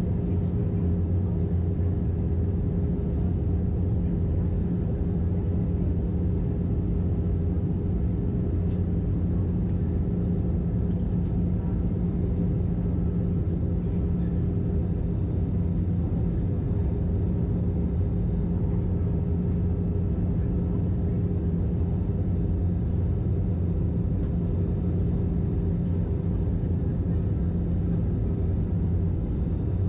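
Steady cabin noise of an Airbus A320-214 in flight, heard from inside the cabin: an even drone of engines and airflow with a constant low hum and a few steady tones that do not change in pitch.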